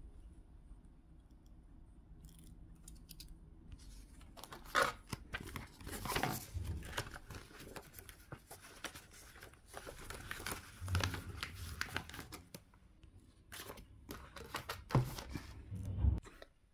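Paper banknotes and envelopes being handled: repeated rustling and crinkling as notes are pulled from the stacks, counted and slipped into paper cash envelopes, with a few soft thumps. The first few seconds are quiet.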